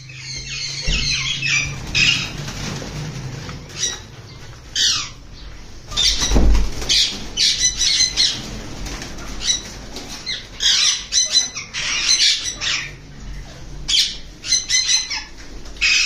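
Caged parrots, sun conures and Alexandrine parakeets among them, screeching in short shrill calls over and over. There is a low thump about six and a half seconds in.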